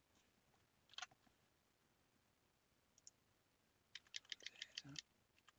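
Faint clicks of a computer mouse and keyboard: one click about a second in, then a quick run of keystrokes about four seconds in.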